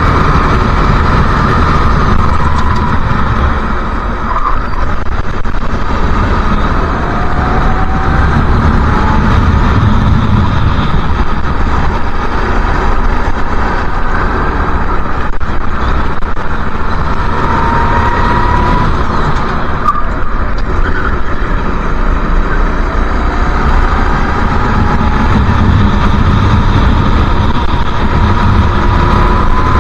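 Racing kart engine at racing speed, heard from on board, its pitch climbing several times as it accelerates out of the corners and along the straights, with a short dip in loudness about four seconds in.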